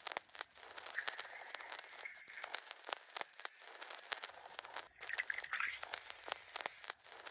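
Homemade fermented mango and passion fruit soda fizzing: a dense, irregular crackle of popping bubbles, with a brighter rush of fizz about a second in and again about five seconds in.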